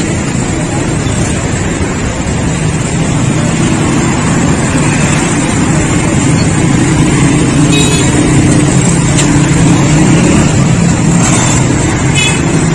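Busy street traffic: vehicle engines running close by with a steady low hum, and two short high beeps, like horns, about eight and twelve seconds in.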